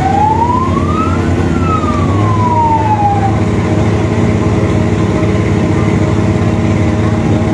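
A fire engine siren wails once, rising then falling, and stops about three seconds in. Under it a large engine runs with a steady rumble.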